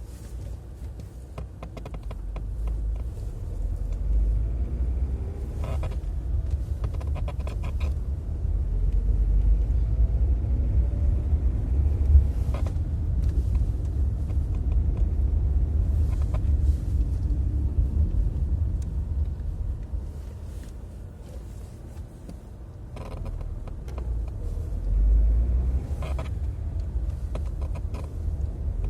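Car pedal assembly creaking in several short bursts over a steady low rumble of the car on the move. The creak comes only under load, and its cause has not been found.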